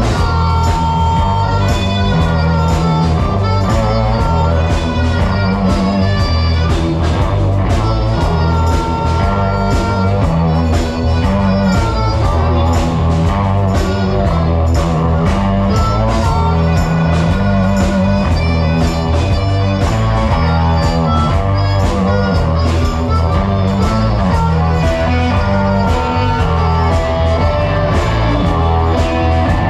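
Live blues band playing: electric guitar and bass guitar over drums with a steady beat.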